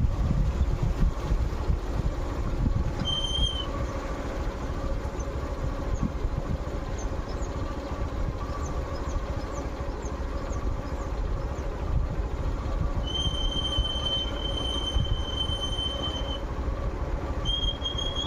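Steady low rumble and hum of a moving vehicle, with a thin high whine that comes in briefly about three seconds in, then holds for a few seconds from around thirteen seconds and returns near the end.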